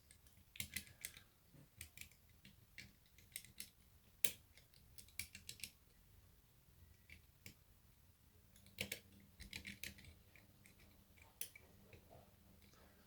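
Faint, irregular clicks and small scrapes of a lock pick and tension wrench working the levers inside an ERA Fortress lever lock as it is picked.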